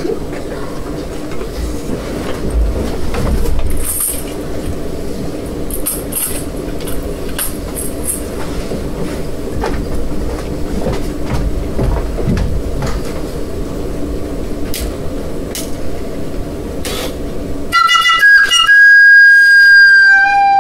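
A steady rumbling drone with a few low held hum tones, then, about eighteen seconds in, a loud, high, sustained whistle held for nearly three seconds.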